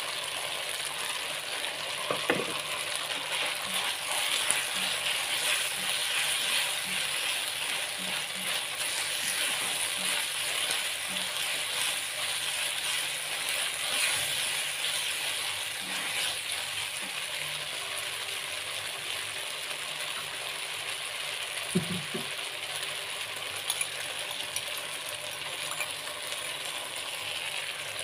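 Vegetables and sauce sizzling in a non-stick wok as a plastic spatula stirs and scrapes through them, with a couple of sharp knocks of the spatula on the pan, about two seconds in and again near the end.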